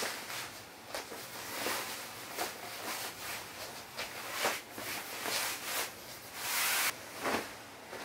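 Bedsheets and a comforter rustling as they are pulled off the bed and bundled up: a run of irregular swishes, with a longer, louder one near the end.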